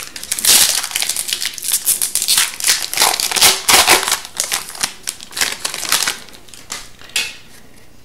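Foil wrapper of an Upper Deck Series 2 hockey card pack crinkling and crackling as it is torn open by hand. It dies down about six seconds in, with a last few faint crackles.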